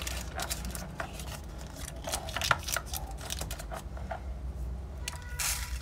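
Parchment paper rustling and crinkling as it is pressed by hand into small tart shells: a run of irregular soft crackles, with a louder rustle near the end.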